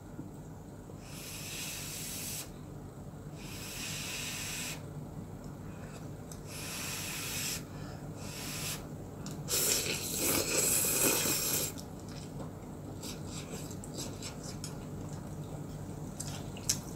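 A person eating hot instant ramen noodles, with several breathy puffs of blowing on a lifted mouthful and the slurping-in of noodles; the loudest and longest slurp comes about ten seconds in.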